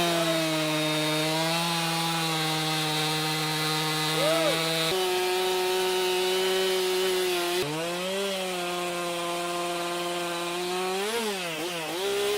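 Gas chainsaw, fitted with a small homeowner bar, running at high speed and cutting into wood. Its steady high engine note steps in pitch about five seconds in, then dips and recovers several times later as the chain bites and the engine comes under load.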